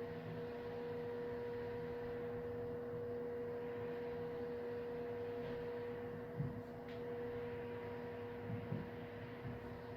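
Steady indoor room hum with a constant mid-pitched tone over a soft hiss, the kind of background drone that ventilation or equipment gives a quiet study room. A few soft knocks come about six and a half and eight and a half seconds in.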